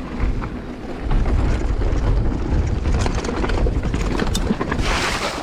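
29-inch mountain bike being ridden over a rough trail: a steady rumble of tyres and wind with many quick rattles and knocks from the bike. A short loud rush of hiss comes near the end.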